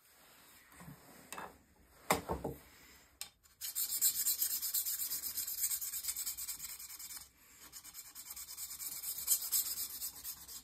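Diamond honing paddle scraped in quick back-and-forth strokes along the steel blade of a TwoCherries drawknife during its initial sharpening, a steady rasping hiss. Two light knocks come first, and the scraping starts a few seconds in, with a brief pause midway.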